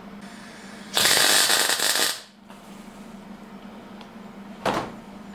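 Welding arc crackling for about a second while plug welding a hinge tag onto a steel bulkhead, with a shorter crackle near the end; the welding power is set higher after a first weld made with too little power.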